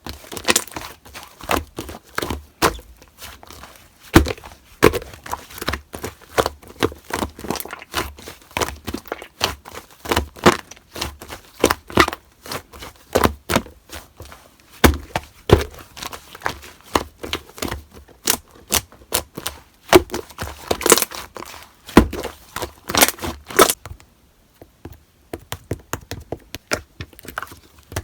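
Slime being worked by hand, giving a rapid, irregular run of clicking and crackling pops. About four seconds before the end the pops thin out and get quieter.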